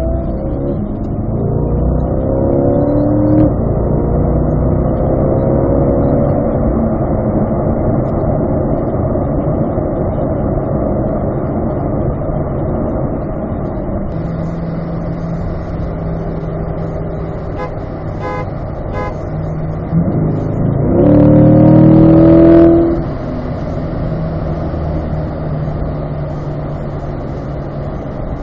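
Sports car engine heard from inside the cabin: it pulls up through the revs at first, then runs steadily while cruising. About three quarters of the way through it revs up sharply for a couple of seconds, the loudest moment, then settles back to a steady run.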